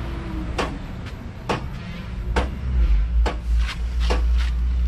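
A series of sharp knocks, one or two a second and unevenly spaced, over a low rumble that grows louder about halfway through.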